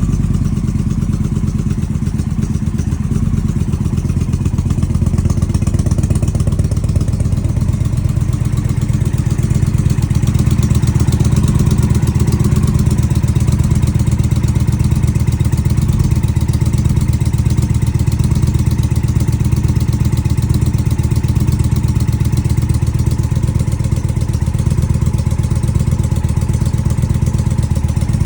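Indian Challenger motorcycle's V-twin engine idling steadily, with no exhaust leak at the pipe joint, which has been sealed with high-temperature exhaust sealant.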